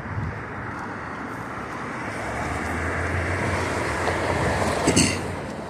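A vehicle driving past on the street, its engine hum and tyre noise growing louder over a few seconds and fading near the end.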